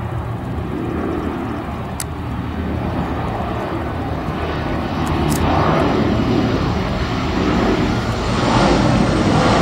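Airliner engines on approach to land: a steady rushing drone that grows louder toward the end.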